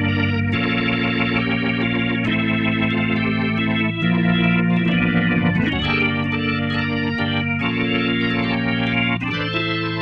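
Hammond XK-5 organ played with both hands: held chords that change every couple of seconds under a moving melody line.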